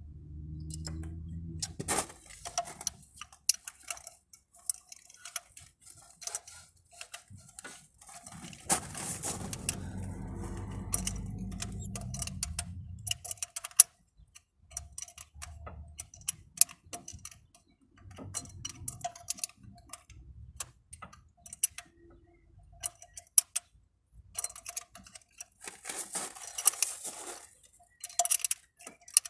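Ratchet wrench clicking in short runs while a glow plug is unscrewed from a diesel engine's cylinder head, with light metal clinks of the tool against the plug.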